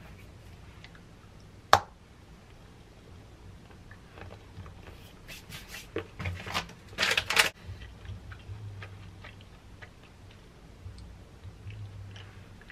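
Hand-handling sounds while topping banana slices with dark chocolate pieces. One sharp snap comes about two seconds in. From about five to seven and a half seconds there is a run of crinkling from the chocolate bar's wrapper, with light clicks before and after.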